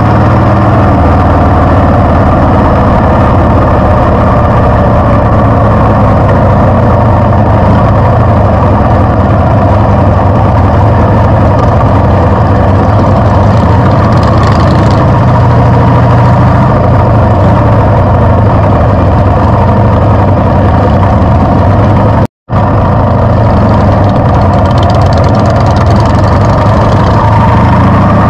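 Harley-Davidson V-twin motorcycle engine running at a steady pitch while being ridden. The sound drops out for a split second about three-quarters of the way through.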